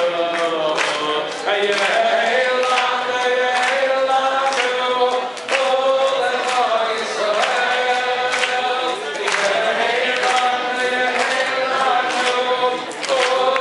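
A man singing a slow chant-like melody through a microphone and PA, holding long notes that slide between pitches, with other voices joining in. A steady beat of sharp claps, about two a second, runs under the singing.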